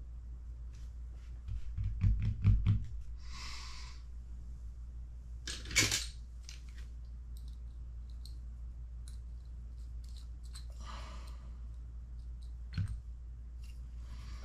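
Light clicks and taps of small metal parts and a hex driver being handled on a workbench mat while ball studs are fitted into a metal RC car part, with a few louder knocks about two seconds in and a sharp click near six seconds, over a steady low hum.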